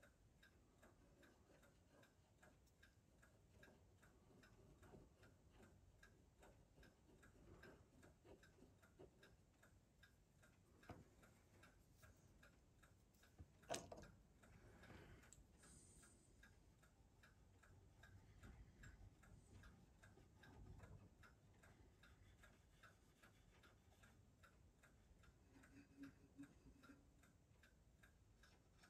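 Near silence: a faint, steady clock ticking, with a few soft knocks and handling sounds, the clearest about 14 seconds in.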